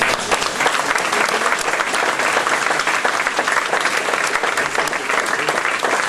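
Audience applauding: many hands clapping steadily in a dense, even patter.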